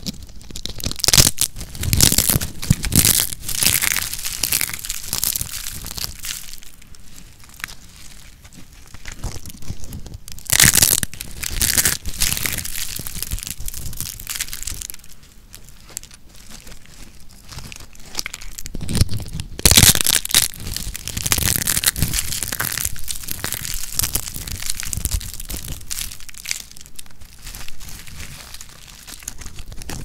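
Hands crushing and breaking dry, crispy soap: stacked thin soap slices snapping and soap curls crumbling into flakes, a dense crackling crunch with several louder spells of crunching.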